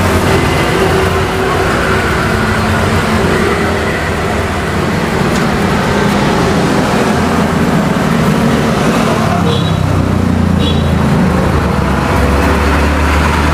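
Steady road traffic running past, a continuous rumble of vehicle engines that swells and shifts as vehicles go by.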